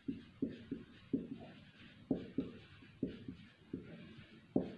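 Marker pen writing on a whiteboard: a quick run of short strokes, about two or three a second, as a word is written out.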